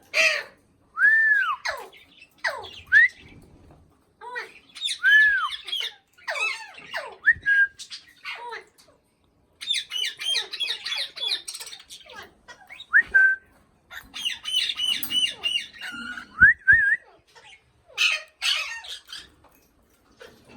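A raw parrot (Alexandrine parakeet) calling: harsh squawks and arching whistled notes that rise and fall, broken by two bursts of rapid chattering notes, with short pauses between the calls.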